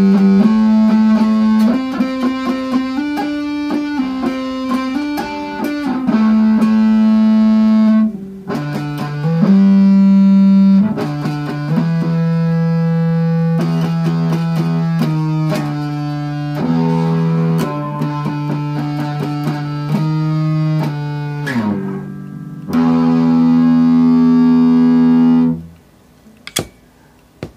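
Electric guitar played through a breadboarded Badass Distortion pedal circuit that uses LEDs as its clipping diodes. It plays distorted, sustained notes and short riffs, with brief breaks about eight and twenty-two seconds in, and stops shortly before the end.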